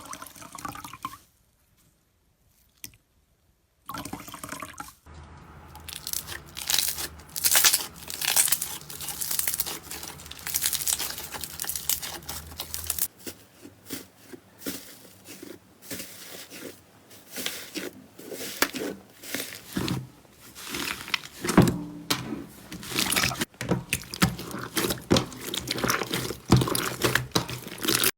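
Slime being squeezed and poked by hand: dense, irregular wet crackling, popping and squishing clicks. They start after a near-silent pause of a couple of seconds near the beginning.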